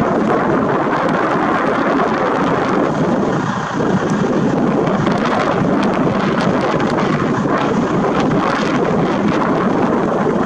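Diesel engines and machinery of Plasser & Theurer track maintenance machines running at close range: a loud, steady noise with no break, a few faint clicks over it.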